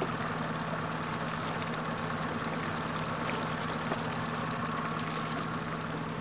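Boat's outboard motor idling steadily, a constant low hum.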